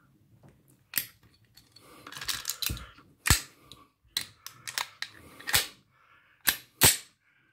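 Semi-automatic pistol being cleared of a double feed by hand: a series of sharp metallic clicks and clacks from the magazine, slide and cartridges, with handling rustle between and two clacks close together near the end.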